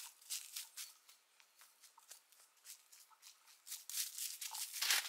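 Footsteps crunching through dry fallen leaves, an irregular run of crackling steps that grows denser and loudest near the end.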